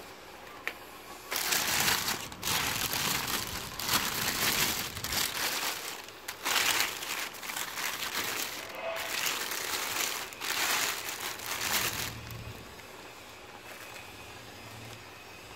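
Thin plastic bag crinkling and rustling in irregular bursts as a hand opens it and handles the wrapped toilet paper rolls inside. It starts about a second in and stops about three-quarters of the way through, leaving only a low steady hum.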